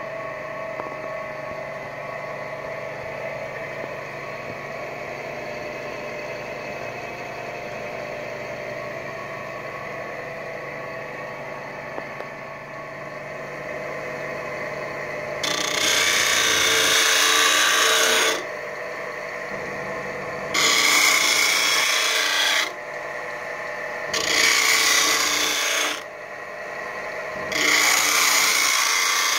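1958 AutoStart 12-inch pedestal grinder with a 2 hp three-phase motor, running with a steady hum. About halfway through, a flat steel piece is pressed against the spinning abrasive wheel four times, a few seconds each, giving a harsh grinding noise with each pass as it throws sparks.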